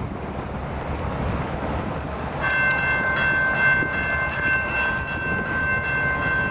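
Diesel freight locomotives rumbling as they approach. About two and a half seconds in, the locomotive's air horn starts and is held as a steady multi-note chord.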